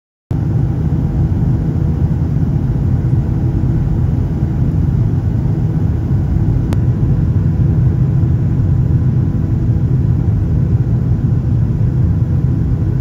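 Steady cabin rumble of a jet airliner in flight, heard from a window seat: deep, even engine and airflow noise with faint steady hums above it. It starts abruptly just after the beginning, and there is a brief click about seven seconds in.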